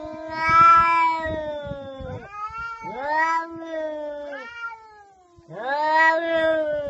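Domestic cats caterwauling in a standoff before a fight: long, drawn-out yowls, two voices overlapping, in three rising-and-falling waves.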